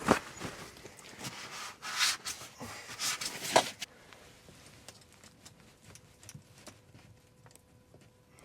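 Hands working on plumbing parts and tools: a few knocks and scraping rubs in the first few seconds, the loudest around three and a half seconds in, then only light scattered ticks and clicks.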